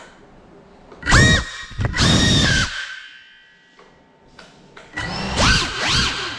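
FPV quadcopter's brushless motors whining under throttle: two sharp bursts that rise in pitch about a second in and at two seconds, a quieter lull, then a whine from about five seconds in that swoops up and down as the throttle changes.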